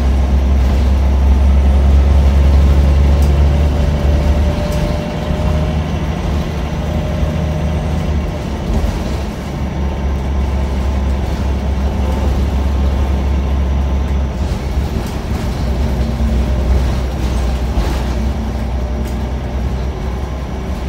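Scania N94UB OmniCity single-deck bus under way, heard from the back seats near the rear engine: a loud low engine drone that swells and eases as the load changes, with a faint rising whine for a few seconds and occasional knocks and rattles from the body.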